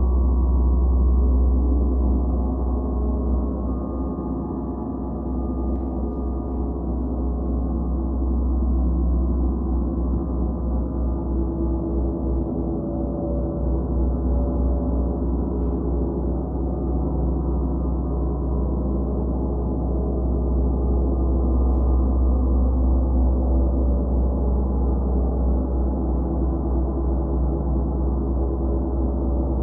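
Gongs being played in a gong bath: a continuous wash of many overlapping ringing tones over a deep low hum, easing off and then slowly swelling again.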